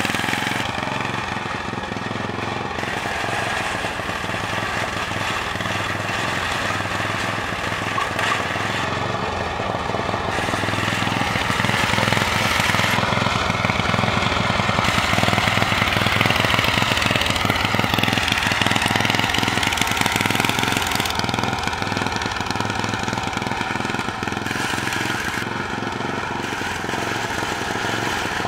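Riding lawn mower engine, on a mower stripped down into a custom drag racer, running as the mower drives along the road. It grows louder as the mower passes close, about halfway through, then eases off again.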